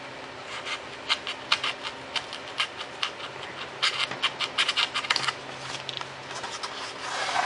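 Foam board crackling and scratching in the hands as the cut scallop pieces along its edge are worked loose: a quick, irregular run of sharp ticks and scrapes that dies down after about five seconds.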